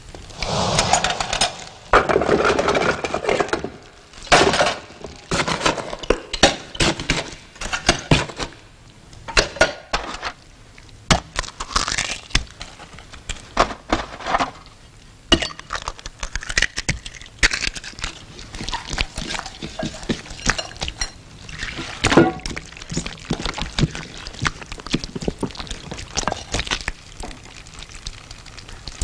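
Close-up kitchen sounds of coal being mixed in a bowl: crunching and scraping of crushed coal lumps, an egg broken into it, and repeated clinks and knocks of the dish and utensils. The crunchy scraping is loudest in the first few seconds.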